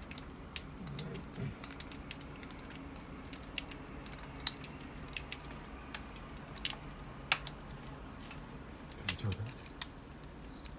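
Irregular light clicks and taps, a few sharper than the rest, over a steady low hum.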